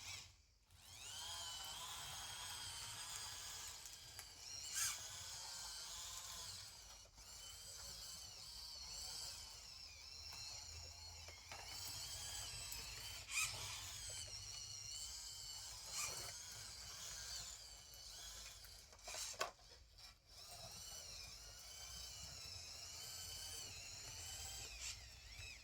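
Small electric motors of radio-controlled construction models whining, the pitch rising and falling as they speed up and slow down, with a few sharp clicks along the way.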